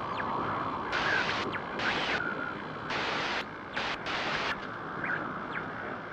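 Static-like hiss, with blocks of brighter, higher hiss cutting in and out about half a dozen times and a few faint short gliding whistles.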